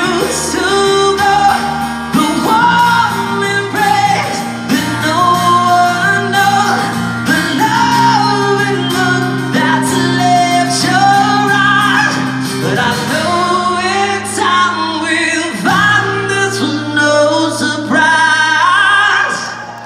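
A man singing a rock ballad live over his own strummed acoustic guitar, with held, bending vocal lines and the hall's echo around them.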